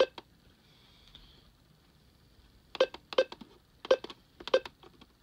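Buttons on an Alert Works EAR-10 weather radio being pressed to step the clock's hour setting. There is one sharp click at the start, then a run of five quick clicks about three seconds in.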